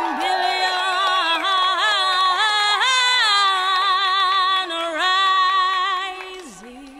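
A woman's singing voice holds long wavering notes with vibrato, the vocal of the dance music, fading out about six seconds in.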